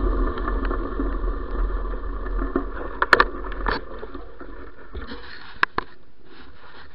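Wheels rolling over a gravel path with wind rumbling on the microphone, the noise fading as the ride slows down. A few sharp clicks and rattles come in the second half.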